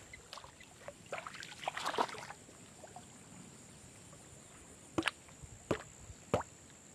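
Water splashing as a person wades through a shallow pond, then a hand-held stone knocking a bamboo stake into the pond bed: three sharp strikes about two-thirds of a second apart in the second half.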